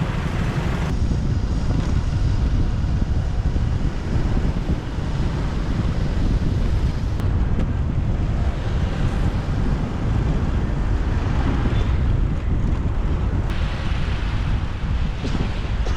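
Wind buffeting the microphone of a moving motorbike, a steady low rumble.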